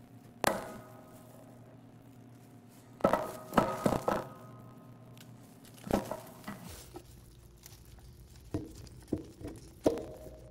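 Sharp metal clinks and knocks, each with a short ringing after it, as a flat screwdriver blade is worked into the seam of a White Mountain hand-cranked ice cream freezer's metal gear housing. The strokes are irregular: one near the start, a quick cluster of four or five about three to four seconds in, then scattered lighter taps toward the end.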